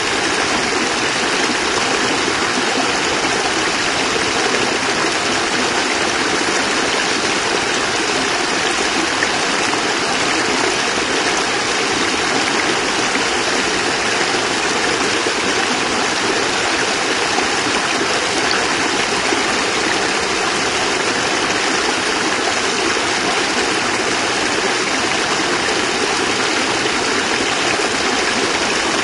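Water pouring steadily over a small cascade, a constant even rush of falling and running stream water.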